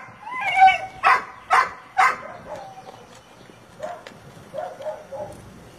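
A dog barking: a drawn-out, wavering bark-whine in the first second, then three sharp barks about half a second apart, followed by a few fainter, shorter calls near the end.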